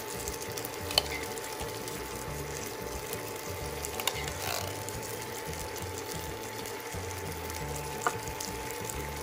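A metal spoon scraping and clinking inside a tin can as kidney beans are scooped out into a pan, with sharper clinks about a second in, at about four seconds and near the end.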